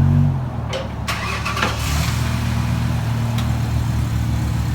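BMW E60 M5's 5.0-litre V10 running through a muffler-deleted exhaust. Its note drops about a third of a second in, a few clicks and rattles follow, and then it settles into a steady, evenly pulsing idle.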